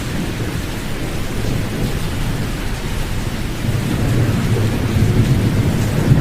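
Continuous deep sleep noise with the highs rolled off: a low rumble under a soft hiss, like steady rain with distant thunder. The rumble swells louder about four seconds in.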